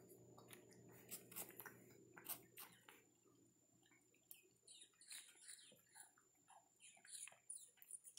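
Near silence, with faint wet clicks and smacks of a java macaque sucking milk from a baby bottle, scattered and uneven.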